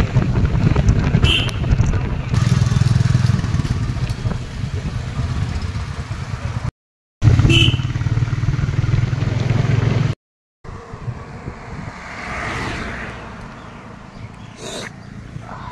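Motorcycle on the move, heard from the pillion seat: a steady low rumble of engine and wind. It cuts off abruptly twice and is quieter in the last few seconds.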